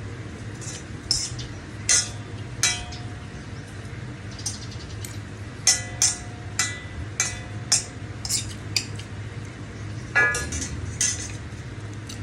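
Metal cutlery clinking and scraping against a dish as noodles are eaten: about a dozen irregular clinks, some leaving a short ring.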